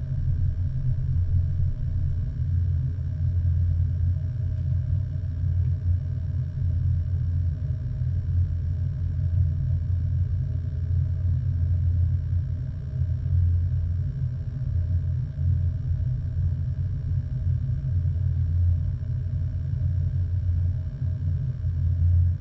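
A steady, deep rumbling drone with a slightly wavering level.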